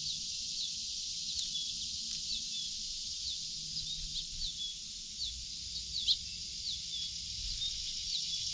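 A steady high-pitched chorus of insects, with a bird repeating short chirps over it about twice a second.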